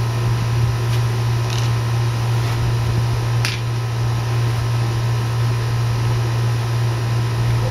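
A steady low mechanical hum, with one faint click about three and a half seconds in.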